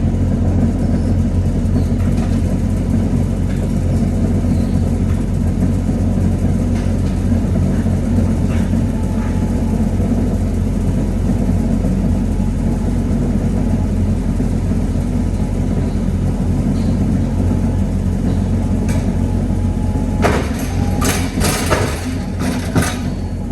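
A large engine running steadily at idle, a low even hum. Near the end come several sharp knocks and clatters.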